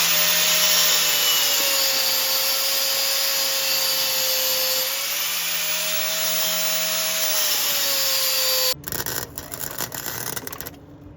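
Handheld electric power tool running at speed with a steady whine for about nine seconds, its pitch sagging a little midway as if under load, then switched off abruptly. Light clatter of handling follows.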